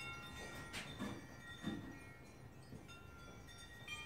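Faint wind chimes ringing, several high tones overlapping and fading, with a couple of soft knocks about one and two seconds in.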